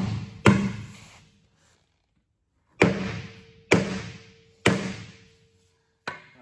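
Sledgehammer blows on a tractor's steel wheel rim at the tire bead, on a rim that is slightly bent and leaking. There are four heavy strikes, each a thud with a ringing note that dies away over about a second, then a lighter knock near the end.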